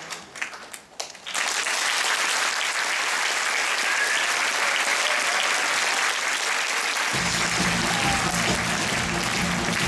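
Theatre audience applauding: scattered claps swell into loud, dense applause about a second in. About seven seconds in, music with a heavy bass line starts up under the applause as the curtain-call number begins.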